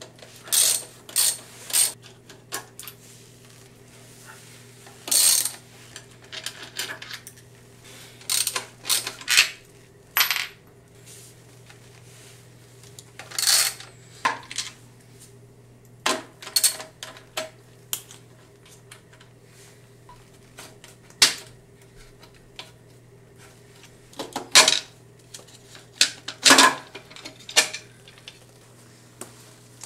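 Sharp metallic clicks and clinks of a hand ratchet and 12 mm socket undoing the bolts and nuts of a Toyota Prius hybrid battery pack's plastic side plate. They come in irregular clusters with pauses between, over a faint steady hum.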